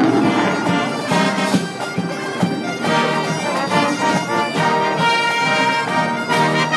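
A combined pipe and brass band playing a tune together: bagpipes and brass instruments, including tubas, sounding at once.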